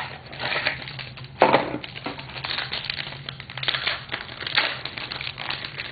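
A baseball card pack's wrapper being torn open and crinkled by hand: a run of irregular crackles, with a sharper snap about a second and a half in.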